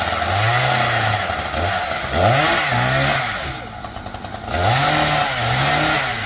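Chainsaw engine revved up and let back down to idle several times in quick bursts, with a short stretch at idle near the middle.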